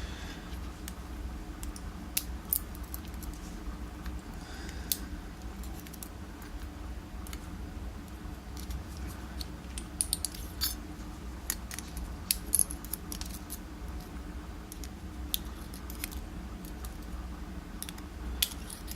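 Scattered light metallic clicks and taps of small lock parts being handled as a Basi dimple lock is taken apart to get at its pins, over a steady low hum.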